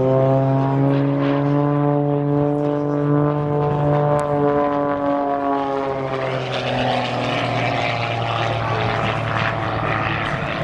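Extra 330 SC aerobatic plane's six-cylinder piston engine and propeller running hard as it flies past. The engine note rises and then falls in pitch in the first few seconds, then goes on as a steadier, rougher drone.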